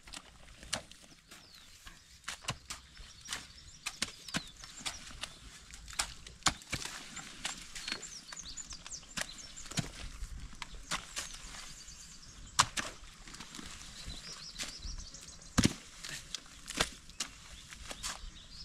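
Hand tools (a jembe hoe and spades) chopping into and scraping wet pond-bank soil: a steady string of irregular thuds and scrapes, several sharper strikes standing out.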